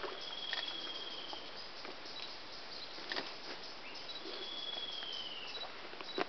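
Rainforest ambience: a steady hiss of insects and forest background, with two long, high whistled notes, the second falling slightly at its end. A few light clicks and taps are scattered through it.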